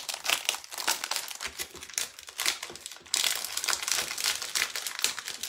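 Thin clear plastic packaging sleeve crinkling and crackling as it is worked open by hand and smoothed flat; the crackle turns denser and steadier about three seconds in.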